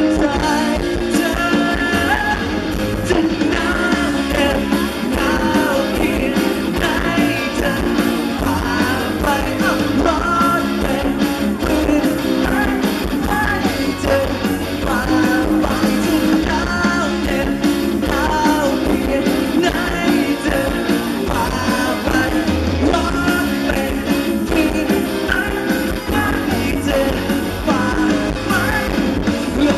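Live rock band playing: a male singer sings into a microphone over drums and electric guitar.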